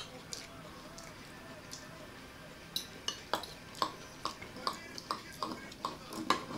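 Forks and spoons clinking and scraping against bowls as people eat, a run of short sharp clicks, two or three a second, starting about halfway through.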